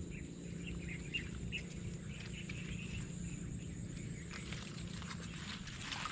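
Rural lakeside ambience: insects keeping up a steady high-pitched buzz, scattered short bird chirps, and a low rumble underneath.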